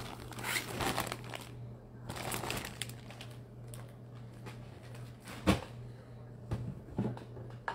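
Clear plastic bag crinkling and rustling as a bagged jersey is handled, with a sharp knock about five and a half seconds in and a couple of softer knocks after. A low steady hum underneath.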